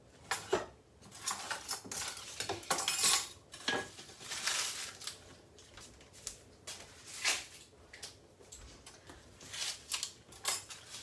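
Kitchen utensils clinking and scraping against bowls and dishes on a countertop, in an irregular run of clatters with no steady rhythm.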